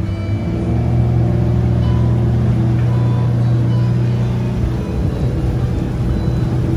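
A small passenger riverboat's engine running steadily while cruising, a constant low hum under a wash of water and wind noise.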